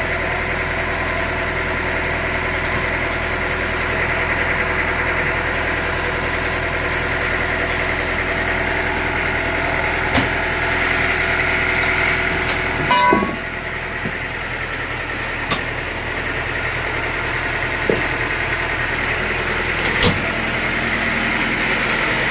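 Sawmill machinery running with a steady hum. About 13 s in there is a brief clatter and the low drone drops, with a few sharp knocks scattered through.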